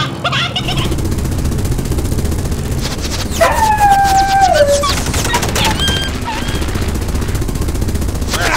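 Sound-effect machine-gun fire, a fast continuous rattle of shots, with a dog's drawn-out cry falling in pitch about three and a half seconds in.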